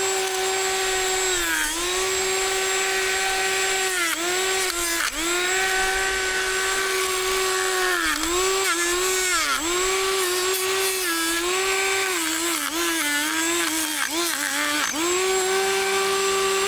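Brushless drone motor spinning a Master Airscrew plastic drone propeller as a weed-cutter blade: a steady, loud electric whine that sags in pitch each time the blade bites into grass stems and then climbs back, several times in a row.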